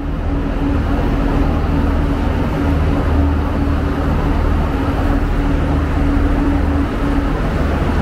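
Irish Rail 29000 Class diesel multiple unit standing at the platform with its diesel engines idling: a loud, steady low drone with a constant hum.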